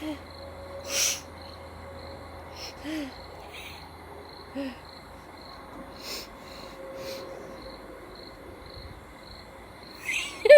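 A person sniffing and breathing hard through the nose after snorting ground pepper that burns, with a few short low hums; the loudest sniff comes about a second in. A faint high chirping pulse repeats about twice a second in the background, and laughter breaks in at the very end.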